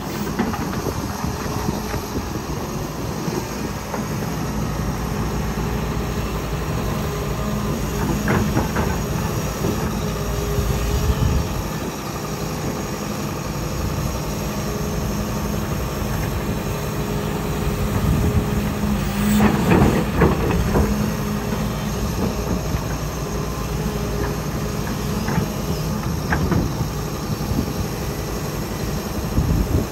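Heavy diesel construction machinery running steadily, an excavator and a dump truck, with several bursts of clanking and rattling. The loudest clatter comes about two-thirds of the way through.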